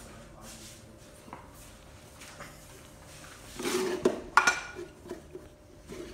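Rustling handling noise, then two sharp clinks of a hard object about a third of a second apart, the second ringing briefly.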